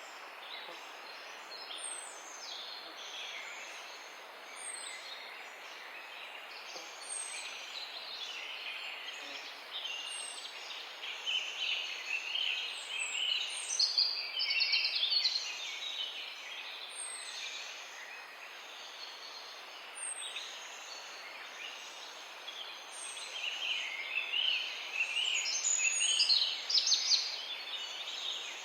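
Morning bird chorus: several birds chirping and singing over one another. A thin, high, falling call repeats about every two seconds throughout. The chirping swells into busier, louder bursts around the middle and again near the end.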